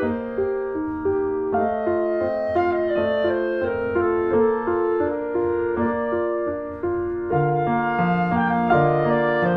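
Instrumental background music: a melody of held notes over a moving accompaniment, with a lower bass line coming in near the end.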